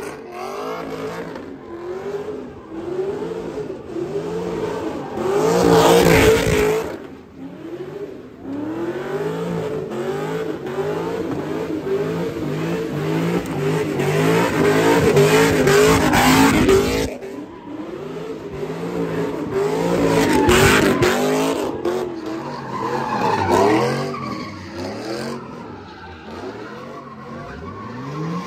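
Pontiac G8 revving hard while spinning its tyres, the engine note rising and falling about once a second, with tyre squeal and a few louder surges.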